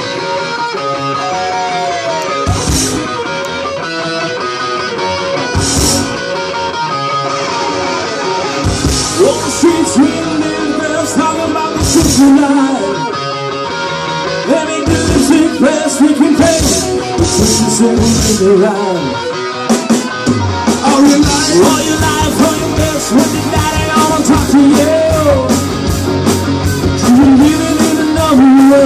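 Live rock band playing loud: two electric guitars, electric bass and a drum kit with crashing cymbals, with a man's lead vocal coming in about a third of the way through.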